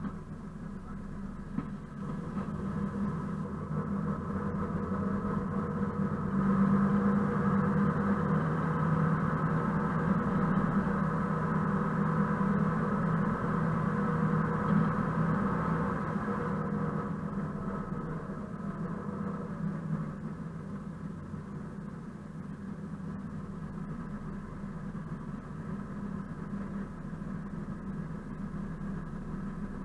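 Diesel engine of a ČKD class 742 locomotive running under power, heard close beside its engine hood along with the train's running noise. It swells about two seconds in, holds loud for roughly ten seconds, then eases back to a lower steady note.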